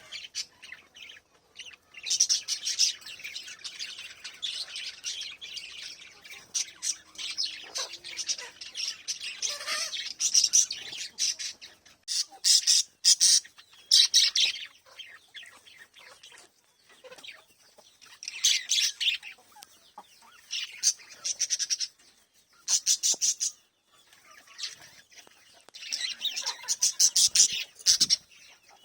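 Small pet parrots chirping in rapid, high twittering bursts, each lasting a second or more, with short pauses between.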